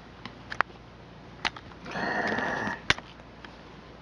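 Kitten giving one high-pitched mew of under a second, about two seconds in, among several sharp taps and clicks.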